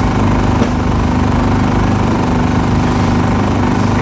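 A small engine running steadily at one constant pitch, with no revving.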